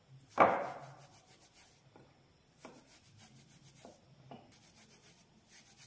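Hands rubbing gram flour and ghee together in a glass bowl: faint, dry rubbing and soft strokes, as ghee is worked through the flour to make it grainy. One louder knock about half a second in.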